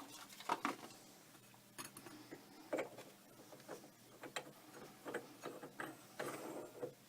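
Scattered light clicks and small clatters of a bi-metal hole saw being fitted onto its arbor by hand.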